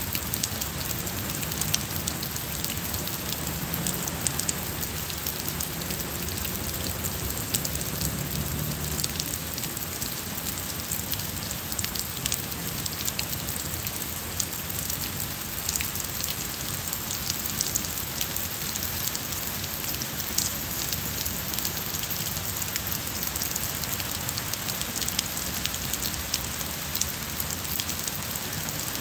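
Steady rain falling on wet stone paving and garden plants, with many small drop impacts ticking close by.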